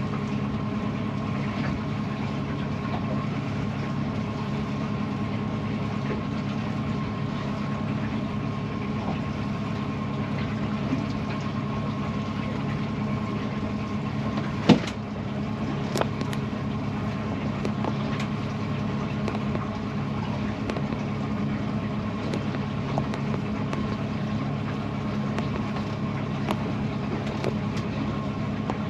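An engine running steadily at an even speed, with one sharp knock about halfway through.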